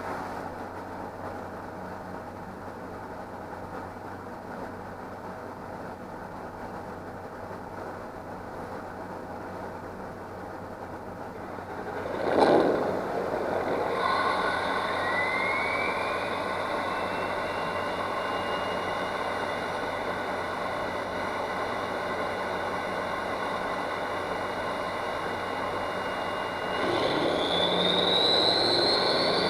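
Ford F-450 truck engine starting about twelve seconds in, after a steady low hum, then idling with a turbo whistle that glides up in pitch and holds. Near the end the engine is revved, louder, and the turbo whistle climbs higher.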